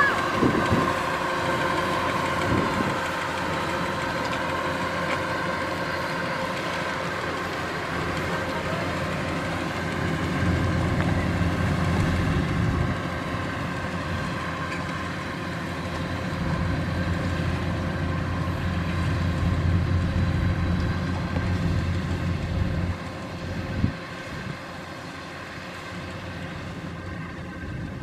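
Kubota DC-93 rice combine harvester running steadily as it cuts and threshes: its diesel engine and threshing machinery make a steady drone with a high whine over it. The low rumble swells in the middle and fades over the last few seconds as the machine moves off.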